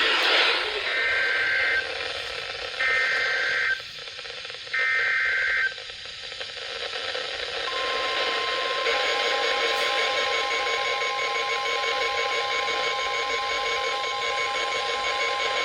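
NOAA Weather Radio alert over background static: three roughly one-second bursts of SAME digital header data, a harsh two-tone screech, about a second apart. About seven and a half seconds in, the steady 1050 Hz warning alarm tone begins, signalling a warning about to be read.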